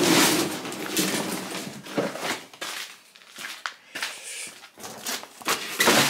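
Irregular knocks, scrapes and rustling as a push lawnmower is manoeuvred across a concrete floor among clutter.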